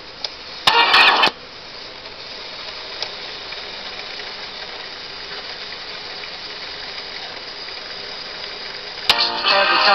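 Panasonic RF-6060 Radar Matic transistor radio's auto-tuning mechanism whirring steadily with a hiss as it seeks across the band. About a second in a brief snatch of a station's music cuts through, and music comes back near the end as the tuner locks onto a station.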